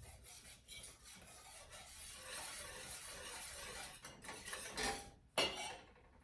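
Balloon whisk stirring lemon curd in a saucepan, a steady scraping against the pan to keep the curd from catching in the corners, ending in a sharp clank about five seconds in, after which it stops.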